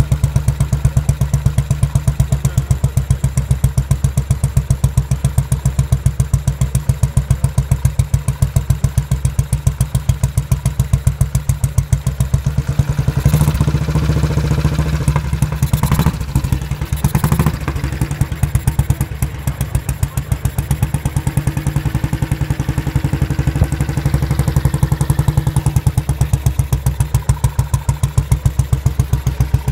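Vintage AJS single-cylinder motorcycle engine running with an even, steady beat of exhaust pulses. The revs rise and fall for a few seconds around the middle, with a couple of sharp cracks, before it settles back to its steady beat.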